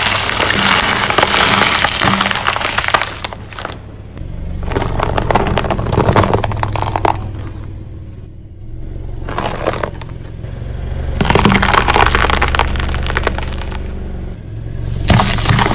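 Car tires rolling over objects and crushing them, with cracking and breaking, over the low sound of the car's engine. It comes in several bursts separated by quieter gaps.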